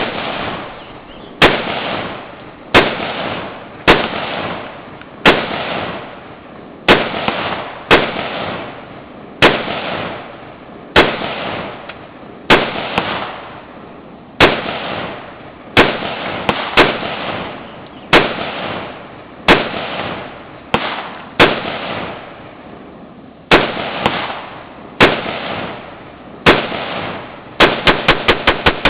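DPMS AR-15 semi-automatic rifle firing single shots about one to one and a half seconds apart, each followed by an echo that dies away over about a second. Near the end comes a quick string of about six shots fired in rapid succession.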